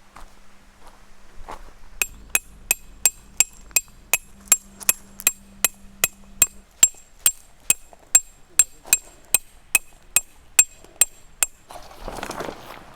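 A hammer driving a metal tent peg into the ground: a long run of steady, ringing metallic strikes, about three to four a second, that stops about a second and a half before the end. It is followed by a short rustling.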